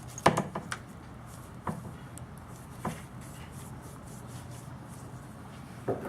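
Light clicks and knocks of the sewer push camera's head, spring and connector being handled as it is unscrewed: a quick cluster in the first second, then single clicks every second or so, over a faint steady hum.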